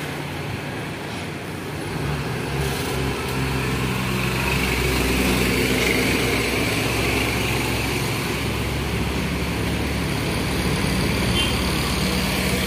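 Highway traffic: diesel trucks and a bus passing with motorcycles. Their steady engine drone and tyre noise grow louder about two seconds in.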